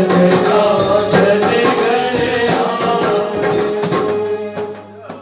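Group of voices singing a Haryanvi/Rajasthani Phagan folk song over rhythmic jingling hand-percussion, the music dying away about four to five seconds in. A low steady hum remains as it ends.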